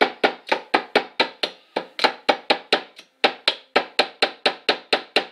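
Rapid sharp metal taps on an Allen key held against a small block in the side of a Weihrauch HW95 air rifle's cylinder, used as a drift to tap the block out. About four taps a second, with two short pauses, stopping suddenly at the end.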